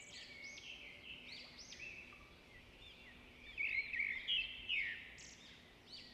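Birds singing: many short, arching chirps overlapping, a little louder about three and a half to five seconds in.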